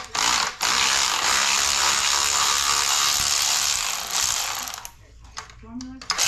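Ratchet wrench run on bolts of a 4L60 automatic transmission during teardown: a brief burst at the start, then about four seconds of steady ratcheting, and another run starting near the end.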